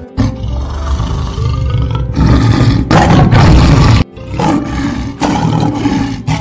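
Lion roaring: loud, rough roars that start suddenly, are loudest about two to four seconds in, break off abruptly about four seconds in, then resume. Background music plays underneath.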